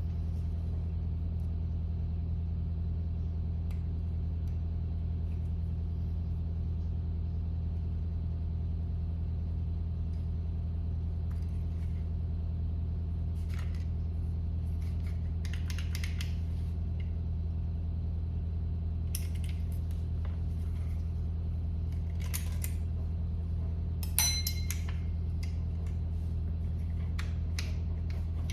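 Scattered small metal clicks and taps from the trigger and hammer pins and springs being worked out of an AR9 lower receiver, over a steady low hum. The loudest is a brief ringing metal clink about three-quarters of the way through.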